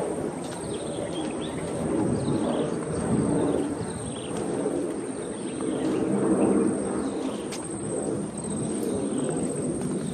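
Birds chirping in short, falling calls over a steady low rumble, with a thin high-pitched tone held throughout.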